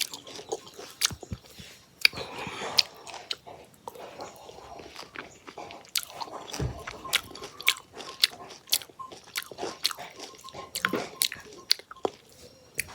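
A person eating a mandarin orange close to the microphone: biting and chewing, with many irregular wet clicks from the mouth.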